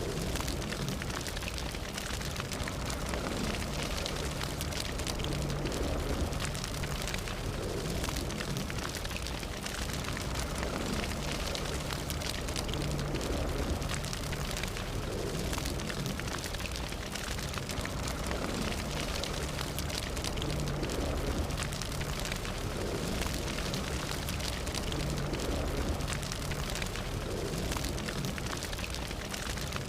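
A fire burning steadily, with dense crackling and popping over a low rumble.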